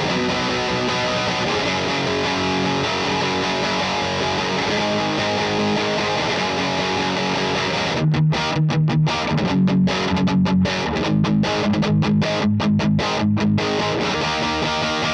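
Electric guitar, a Gibson Les Paul Tribute with P90 pickups, played through the Acorn Amplifiers AFKK Klon-clone overdrive pedal: overdriven chords ring, then from about eight seconds in comes a run of short, slightly louder stabbed chords with brief silences between them, before the chords ring on again near the end.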